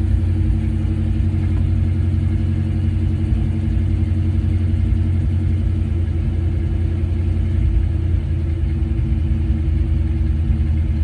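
1968 Ford Mustang engine idling steadily, a low even hum with no change in speed.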